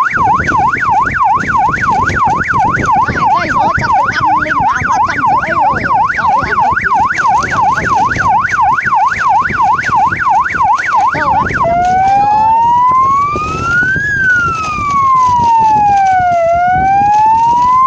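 Three-mode police-style siren fitted to an electric bicycle, sounding a fast warbling yelp, then switching about twelve seconds in to a slow wail that rises and falls over a couple of seconds each way.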